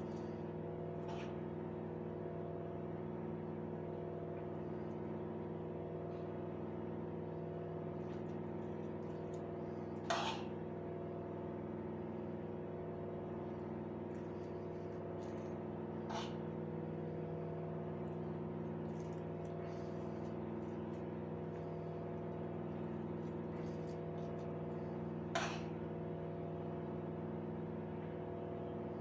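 Steady mechanical hum made of several held tones, with three short, light clicks spread through it, as of a spoon knocking while stuffing is pushed into a whole raw chicken.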